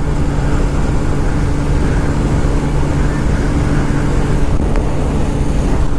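TVS Raider 125's single-cylinder engine held at full throttle near top speed, a steady drone under heavy wind rush on the microphone.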